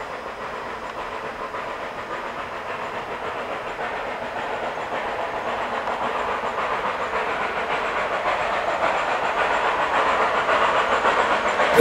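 A train running, its noise growing steadily louder as it approaches.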